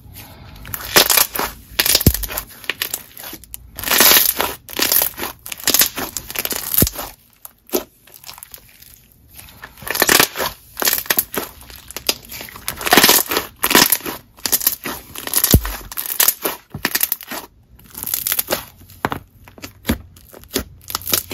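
Slime Obsidian's Ultraviolet, a thick, stretchy clear slime, being pressed, stretched and folded by hand. It gives an irregular run of wet clicks and crackly pops as air bubbles in it burst.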